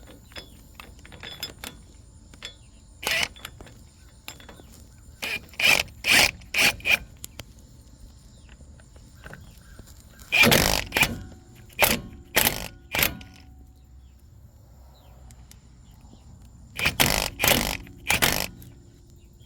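Cordless impact wrench fired in a dozen or so short bursts, in several groups, on a lug nut drawing a new wheel stud into the hub. It can't pull the stud in because its battery is nearly flat.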